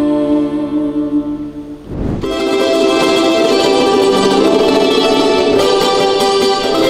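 Folk music: a held accordion chord fades out about two seconds in, with a brief low thump, and a brighter piece with plucked guitar and strings starts.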